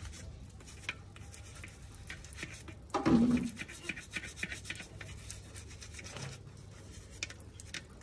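Toothbrush scrubbing the soapy plastic tap of a clay water pot, a quick, irregular scratchy rubbing. A brief louder sound comes about three seconds in.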